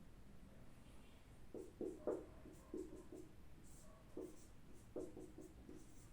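Writing by hand: a pen or marker moving on a writing surface in a series of short, faint, squeaky strokes, as the mnemonic for Porifera is written out.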